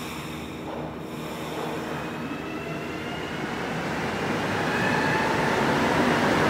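Montréal Métro Azur (MPM-10) rubber-tyred train pulling away from the platform. The traction motors give several rising whines as the train picks up speed, and the running noise grows steadily louder.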